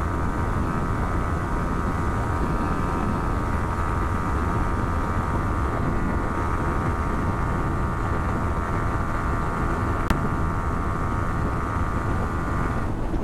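Yamaha MT-15's single-cylinder engine holding a steady high-speed cruise, with a steady high whine over heavy wind rush on the microphone. The whine drops away near the end.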